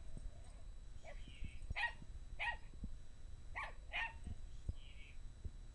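Small dog barking in about five short barks, agitated and angry at a hamster, with soft thumps from its paws on the blanket between barks.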